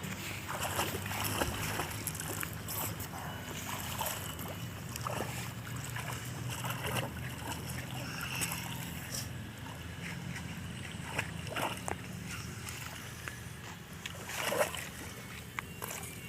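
Water splashing and sloshing in a swimming pool as a child plays, in short irregular splashes over a steady low hum. Brief voices come through now and then.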